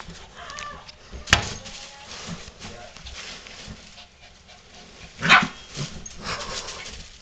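Lhasa apso barking while playing with a large rubber bouncy ball, the loudest bark about five seconds in, with a sharp knock about a second in.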